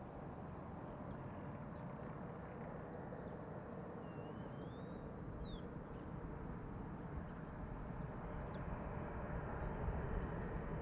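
Distant jet airliner noise, the CFM56 engines of an Airbus A320-214, a steady rumbling hiss growing gradually louder as the aircraft approaches. About four seconds in a bird gives a single whistled call that wavers upward and then drops sharply.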